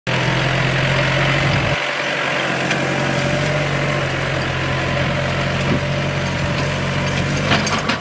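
Compact diesel tractor engine running steadily under load while pulling a disc harrow, with a shift in its low hum just under two seconds in.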